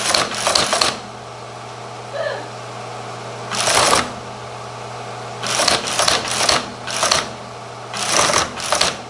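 Teletype Model 15 teleprinter typing and printing character by character in uneven bursts of mechanical clatter, with pauses between groups of keystrokes. The machine's motor hums steadily underneath.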